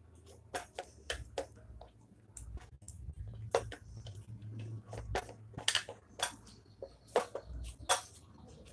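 Fingers pressing and patting cooked lentil paste flat on a plate, with about a dozen irregular light clicks and taps against the plate.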